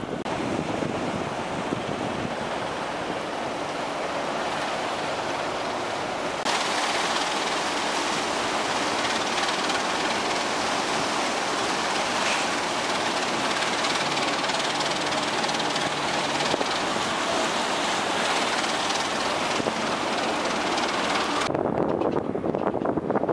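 Tugboat working close alongside a barge: a steady rush of propeller wash churning the water, with the boat's engine running underneath. The rushing hiss comes in abruptly a few seconds in and falls away suddenly near the end.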